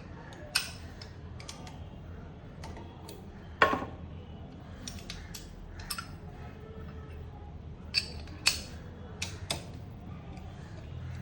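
Metal hand tools and parts clinking and tapping as they are handled, about a dozen sharp irregular clicks with the loudest about three and a half seconds in, over a steady low hum.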